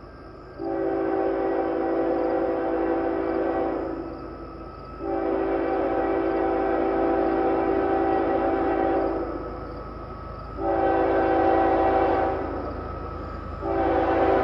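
Multi-chime air horn of CN 2840, the diesel locomotive leading a southbound intermodal train, sounding four blasts: long, long, short, and a final long one still held at the end. This long-long-short-long pattern is the standard signal for a train approaching a public grade crossing.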